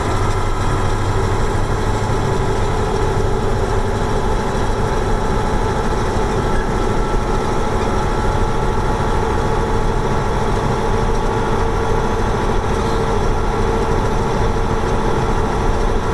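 1989 Mack Superliner's E9 V8 diesel running steadily while the truck drives at road speed, heard from inside the cab.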